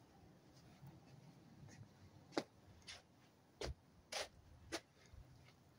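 Near silence broken by about five short scuffing clicks in quick succession over a couple of seconds, the first the loudest.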